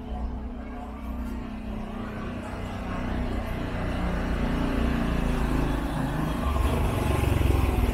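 Road traffic: a motor vehicle's engine rumble grows steadily louder and peaks near the end, as it approaches and passes.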